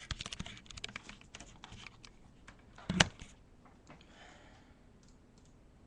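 Rubik's cube layers being turned fast, a quick run of plastic clicks for about two seconds: the last moves of a speed solve. Then a single loud knock about three seconds in.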